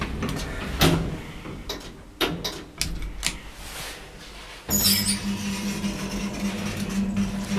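Passenger lift: a few sharp clicks and knocks, then about four and a half seconds in a steady motor hum starts suddenly and holds as the lift runs.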